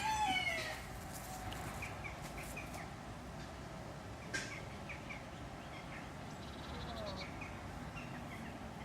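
A rooster crowing, the crow ending with a falling note just under a second in, followed by small birds chirping in short, repeated notes.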